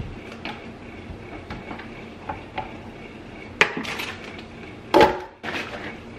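Light knocks and clicks of handling a plastic Vitamix blender jar, a plastic bag rustling about three and a half seconds in, then frozen strawberries dropping into the empty jar with a loud clatter about five seconds in.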